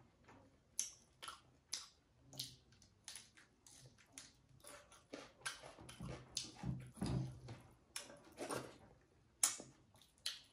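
Close-miked mouth sounds of eating: wet chewing and lip smacks, heard as a string of short sharp clicks, with a longer, louder stretch of chewing about six to seven seconds in.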